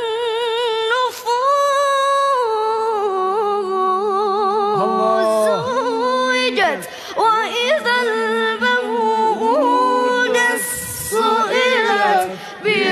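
Unaccompanied solo voice singing a long, ornamented melodic line, with wavering vibrato-like turns and a few short breaths.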